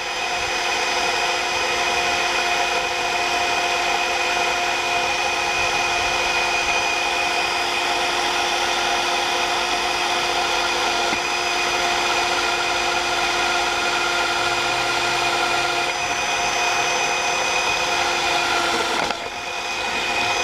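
Cordless drill running steadily, boring a pilot hole into a metal bracket, then stopping abruptly near the end.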